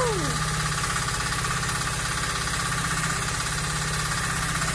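Mini excavator's small engine idling steadily, a close, even low pulsing hum.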